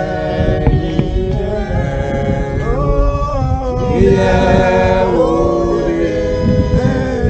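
A group of voices singing a slow hymn without instruments, long held notes moving together.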